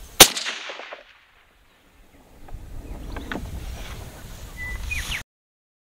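A single suppressed shot from a 7mm Remington Magnum rifle fitted with an ATEC H2 suppressor, shortened by one module and with a brake end cap. The shot comes about a quarter second in: a sharp crack with a short tail that dies away within a second. After it there is low outdoor background with a few faint chirps, and then the sound cuts off abruptly near the end.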